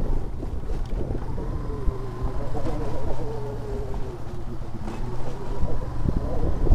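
Yamaha Byson motorcycle's single-cylinder engine running with its pitch wavering a little, under a low rumble of wind on the microphone.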